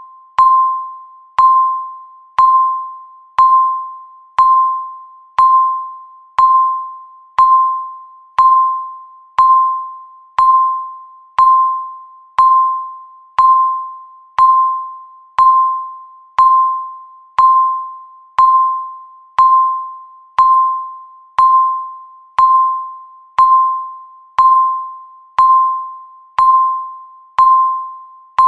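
Countdown-timer beep sounding once every second: a single-pitched electronic beep that starts sharply and fades out, marking each second as the timer counts down.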